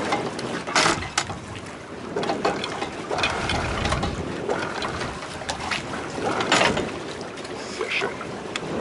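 Catamaran under motor: a steady rush of wind and water with scattered sharp clicks and knocks at the bow.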